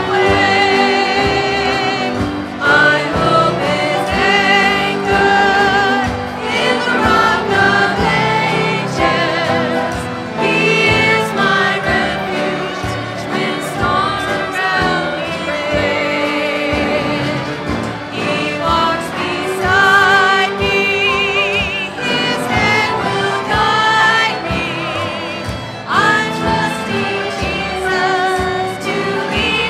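Gospel music with a choir singing, the voices wavering with vibrato.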